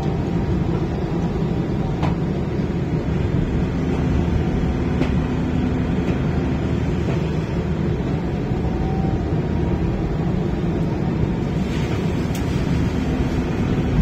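A heavy engine running steadily at a constant speed, a dense low rumble with a faint steady hum in it.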